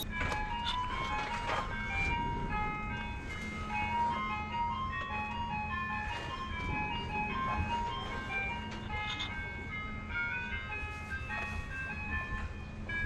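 Background music: a melody of short, high notes moving in steps over a steady low tone.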